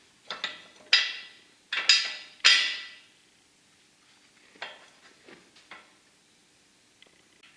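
A hammer striking steel: about six sharp ringing metallic clanks in the first three seconds, then three lighter taps around the middle.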